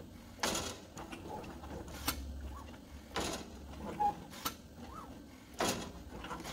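CNC plasma table's gantry motors driving a felt-tip marker holder across sheet metal as it plots lettering and circles: a steady low hum, broken by four short swishes as the head makes quick moves.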